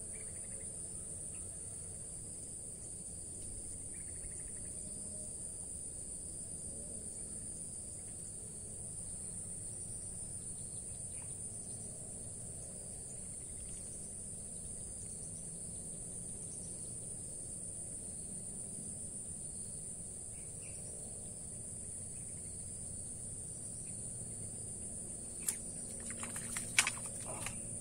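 Steady high-pitched drone of insects in swamp grass. Near the end a few sharp clicks and rustles come as the fishing rod is jerked up, one of them the loudest sound.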